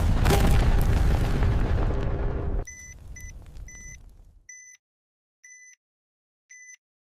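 A bomb explosion sound effect: a loud blast with a rumbling tail, cut off abruptly about two and a half seconds in. It is followed by a bomb timer's short electronic beeps, three close together, then about one a second.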